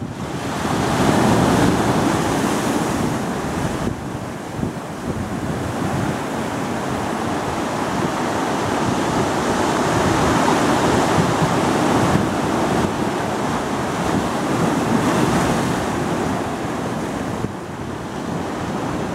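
Ocean surf washing in over rocks and sand, a continuous rush that swells louder about a second in and again around ten seconds in, with wind buffeting the microphone.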